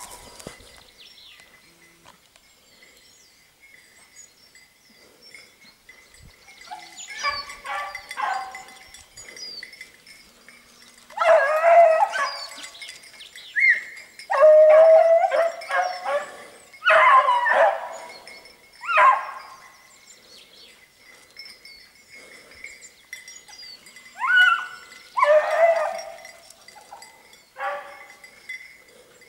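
Beagles baying in repeated short bouts, starting about seven seconds in, the hounds giving tongue as they work a hare's scent trail.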